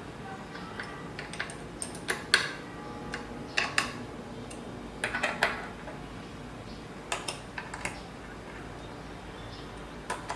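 Metal clicks and clinks in short clusters every second or two as bolts on a CNC Z-axis linear rail are tightened gradually by hand with a tool.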